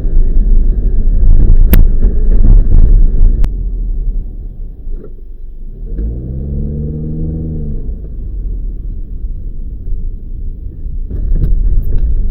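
Motor vehicle on the move: a steady low engine and road rumble. Around the middle the engine note rises and falls again, and two sharp clicks come in the first few seconds.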